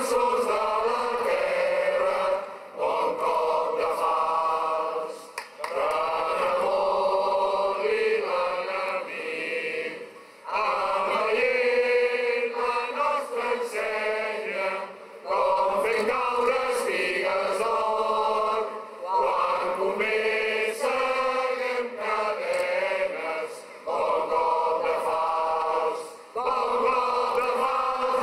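A large crowd singing together in unison. The phrases are long, a few seconds each, with brief pauses for breath between them.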